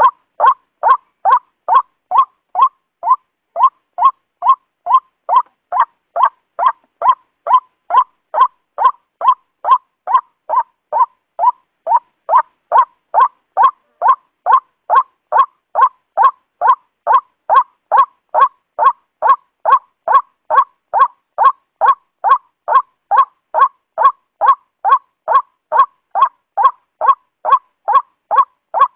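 Waterhen calling: short, falling calls repeated at an even, unbroken pace of about two to three a second.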